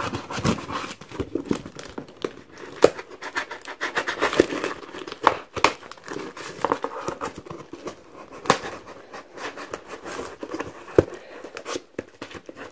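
Clear plastic wrap crinkling and a knife cutting and scraping through the film and tape on a cardboard box, in irregular crackles and sharp clicks.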